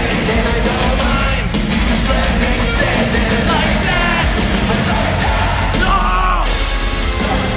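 Hard rock band playing live in an arena: loud distorted guitars, drums and a singing voice.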